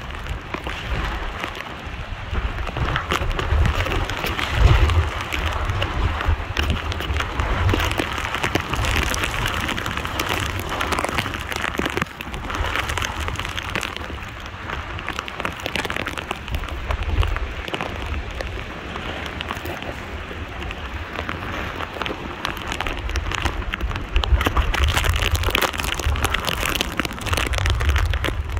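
Heavy hurricane rain pouring down in a dense, steady hiss, with gusts of wind rumbling on the microphone that rise and fall.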